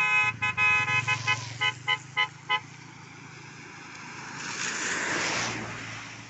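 A vehicle horn honks in a run of toots over a low engine hum, the later toots shorter and quicker. A few seconds later a rushing noise swells and fades away.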